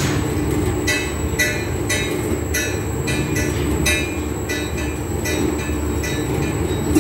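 Xanthan gum mixer running: a steady drive hum under short, high squeals that come about twice a second as the stainless steel stirring arms turn through the thick paste.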